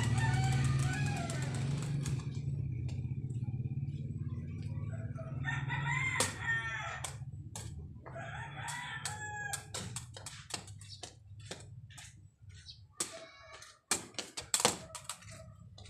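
Rooster crowing three times, over a low hum that fades out in the first few seconds. Sharp knocks of a sepak takraw ball being kicked back and forth come more and more often through the second half, the loudest near the end.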